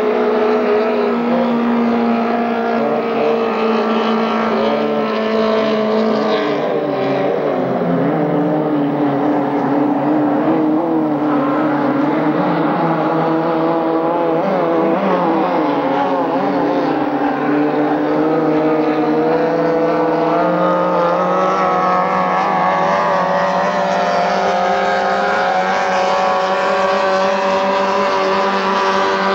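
Racing three-point hydroplanes' engines running hard as the boats pass, several engines at once at different pitches. The pitches waver up and down in the middle stretch and climb slowly toward the end.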